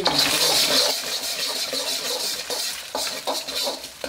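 Eggs sizzling in hot oil in a thin wok on high flame while a steel ladle breaks them up and scrambles them, scraping and clinking against the pan. The sizzle is loudest in the first second or so.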